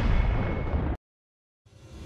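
Cinematic outro sound effects: a deep, rumbling boom-style impact that cuts off suddenly about halfway through, a moment of silence, then a low rumble swelling up near the end.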